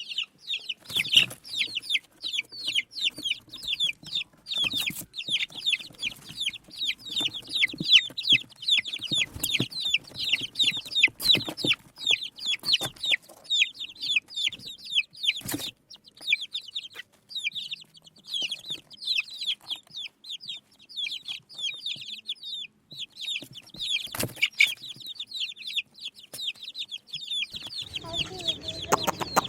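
A brood of desi hen chicks peeping constantly: rapid, high-pitched cheeps, several a second, with scattered sharp taps. A lower-pitched sound joins near the end.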